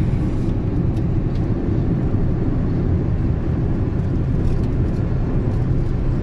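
Steady low rumble of road and engine noise inside a moving car with its windows shut, with a few faint clicks.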